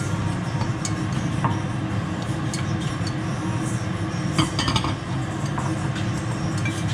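Utensils clinking against dishes and pots in scattered light clinks, with a cluster about four and a half seconds in, over a steady low hum.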